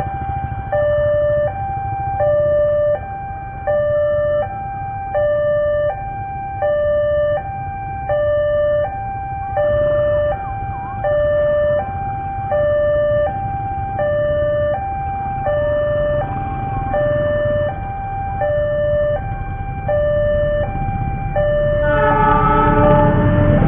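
Railway level-crossing warning alarm sounding continuously, an electronic tone alternating evenly between two notes, each held for under a second, warning that a train is approaching. Near the end a locomotive horn comes in and the rumble of the arriving train grows louder.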